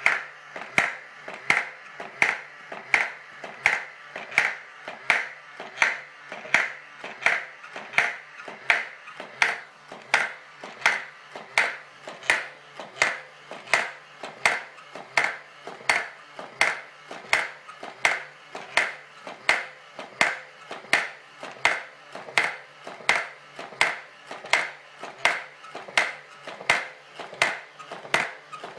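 Homemade coin-ring machine: a motor-driven ball-peen hammer, pulled back by a coil spring, strikes the coin in an even rhythm of about two blows a second, each with a short metallic ring, over a low motor hum. The steady tapping is what works the coin's edge over into a ring.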